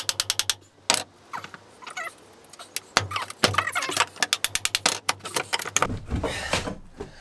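Quick runs of sharp taps, knocks and rattles from a claw hammer and pry bar working at old lino and timber floorboards, sped up so the strikes come several to the second.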